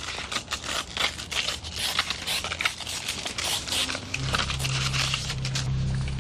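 Paper envelope slit open with a folding knife, then the letter pulled out and unfolded: a dense run of rustling, scraping and crinkling paper. About four seconds in, a low steady hum comes in under it.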